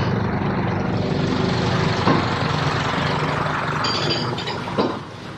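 Diesel engine of an 844 XL farm tractor running steadily as it drives past close by, with a sharp knock about two seconds in and another near the end. The engine sound drops away near the end.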